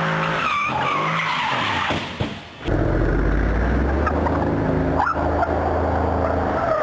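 Mercedes-AMG C63 drifting: its V8 engine running at high revs under load while the tyres squeal, with the engine pitch rising and falling. The sound dips briefly a little over two seconds in, then returns as a steady, heavy engine note with further tyre squeals.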